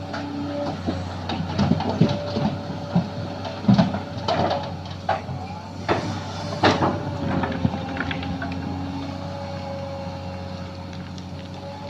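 Sany SY215C hydraulic excavator working, its engine running with a steady hum and a held whine, while a string of sharp knocks and clanks comes between about one and eight seconds in as it digs and loads fill soil.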